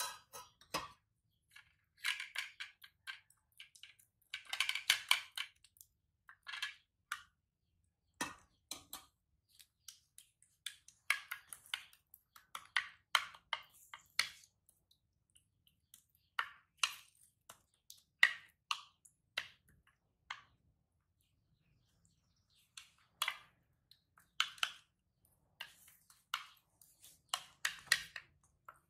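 A spoon stirring and scraping porridge in a shallow dish, giving short irregular bursts of clicks and scrapes with pauses of a second or two between them.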